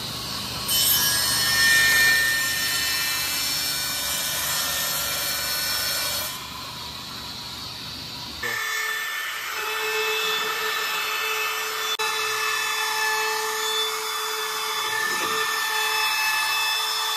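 Table saw cutting through a small wooden board for about five seconds, then spinning on more quietly once the cut is through. After an abrupt change, a handheld trim router runs with a steady hum as it rounds over the edge of a board.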